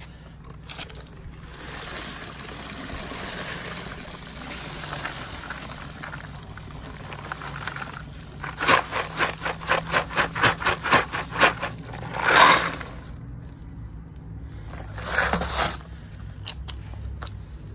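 Wash water and brass 9mm casings with stainless tumbling media pouring out of a rotary tumbler drum into a wire-mesh strainer over a bucket: a steady splashing pour, then a quick run of sharp metallic clatters about four to five a second as the drum is shaken out. Two louder rushes of clattering metal follow near the end.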